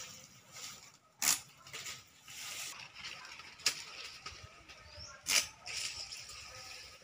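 Machete chopping coconut fronds: three sharp cuts, a couple of seconds apart, with leaf rustling between them.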